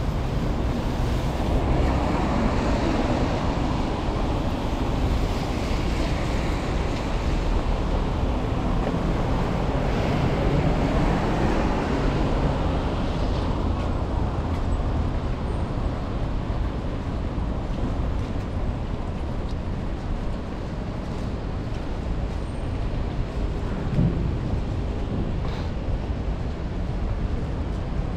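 Street traffic noise: a steady rush of passing vehicles that swells as vehicles go by, about two and ten seconds in. There is a single short knock a few seconds before the end.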